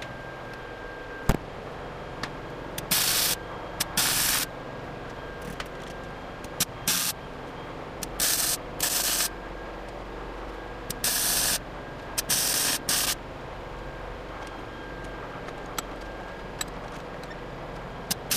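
Wire-feed welder laying short stitch welds on a steel engine mount: about eight brief bursts of crackling arc hiss, each under a second, with pauses between. A single sharp click sounds about a second in.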